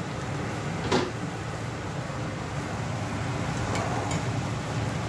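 Wooden spoon stirring chicken pieces in a stainless steel pot, with one sharp knock about a second in and a couple of light taps later, over a steady low hum.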